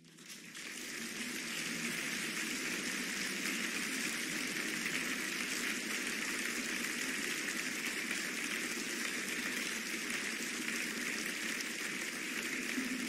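Large audience applauding after the aria ends: the dense clapping swells over the first second or two, then holds steady.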